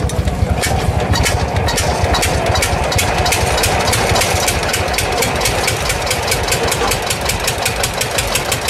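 Old tractor engine running with an even chugging beat of exhaust pulses, several a second.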